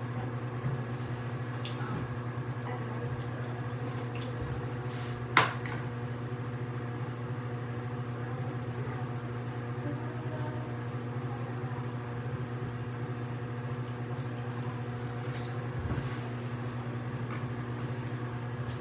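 Steady electric hum of a bathroom ventilation fan, with one sharp click about five seconds in and a few faint ticks.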